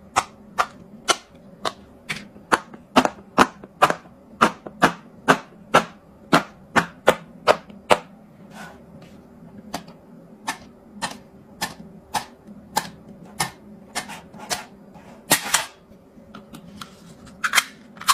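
Silicone pop-it fidget bubbles being pressed in one after another, each giving a sharp pop, about two a second, with a louder burst of pops about fifteen seconds in.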